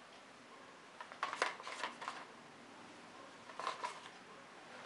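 Small cardboard box being handled and opened by hand: short papery scrapes and rustles, a cluster of them about a second in and two more near the end.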